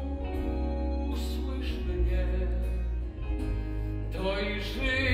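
Live theatre band accompaniment playing held chords over a steady bass line, with a man's singing voice coming in near the end.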